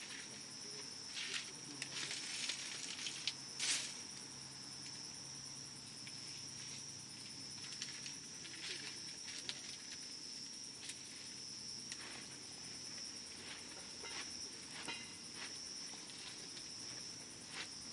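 Wood campfire crackling with scattered pops, a few louder ones in the first four seconds, over an insect's steady high-pitched trill.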